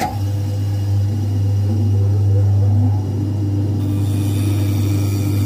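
Shoe repair finishing machine switched on and running with a steady low hum, its spindle driving a groover as a leather sole is pressed against it to cut the stitch channel.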